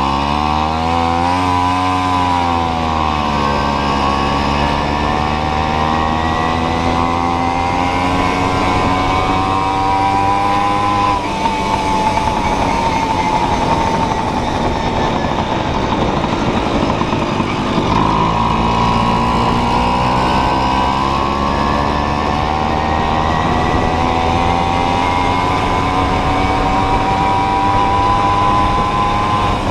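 Tomos Targa moped's 49cc two-stroke engine under way, its pitch climbing steadily as it gathers speed. About eleven seconds in the engine tone drops out abruptly into mostly rushing noise, and from about eighteen seconds the engine note comes back and climbs again.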